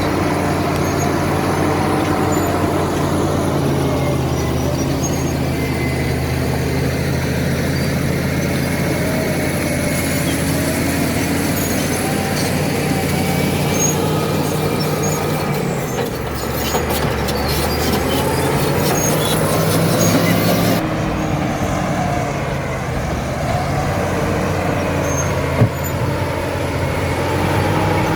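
Caterpillar D7 bulldozer's diesel engine running steadily, its note shifting about halfway through and again a few seconds later, with one short sharp knock near the end.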